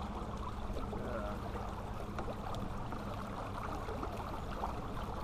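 Electric trolling motor pushing a john boat, humming steadily with water noise around the hull.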